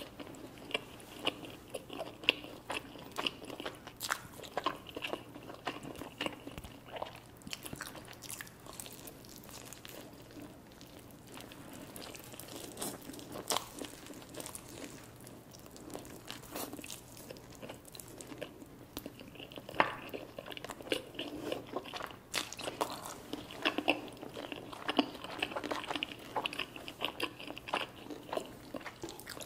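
Close-miked eating sounds: a person chewing and biting food, with frequent crunches and small irregular clicks.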